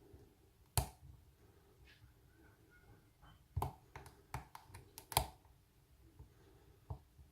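Lock pick and tension wrench clicking in the keyway of an aluminium American Lock Company 1205 padlock during picking: one sharp click about a second in, a quick run of clicks around four to five seconds, and one more near the end.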